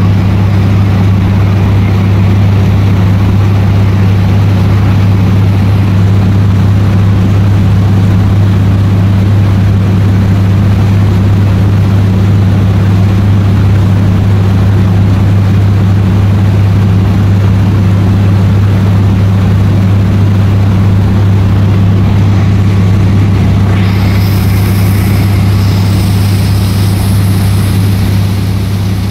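Boat engine of a small fibreglass passenger boat running steadily under way, a loud even low drone that holds one pitch. A higher hiss joins in about five seconds before the end.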